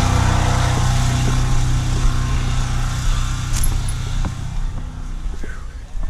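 DuroMax XP4850EH dual-fuel portable generator running steadily on propane under the load of several refrigerators and freezers. Its hum fades over the last couple of seconds as it is left behind, with a few light knocks along the way.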